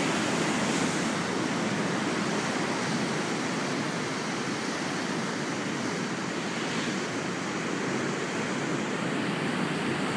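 Rough storm sea: waves surging and breaking around a harbour pier, heard as a steady, unbroken rush of surf with no separate crashes.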